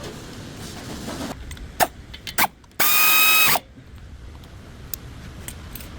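A few clicks and scrapes, then a power tool running in one burst of just under a second, with a steady whine over a hiss that starts and stops abruptly.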